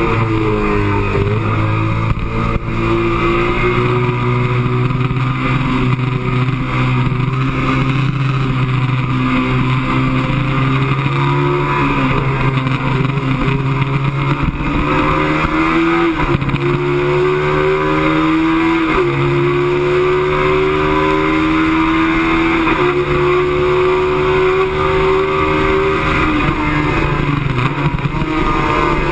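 Sport motorcycle engine pulling hard on a race track, its pitch climbing through the gears with sharp drops at each upshift, three times in the second half, under steady wind rush on the onboard camera's microphone.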